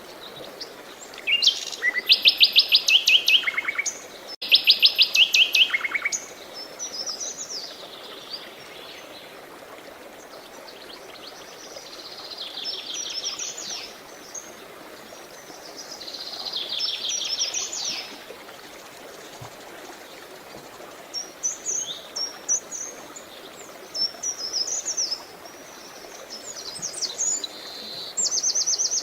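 Songbirds singing: two loud, rapid trills in the first six seconds, then quieter trills and scattered short chirps, over a steady soft rush of flowing water.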